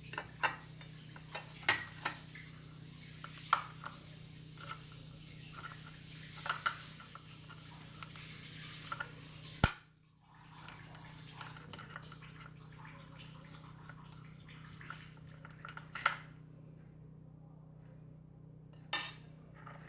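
Grated onion being pressed and scraped in a strainer with a utensil: scattered clinks and scraping against the strainer and bowl, with a sharp click about halfway through. The clinks thin out over the last few seconds.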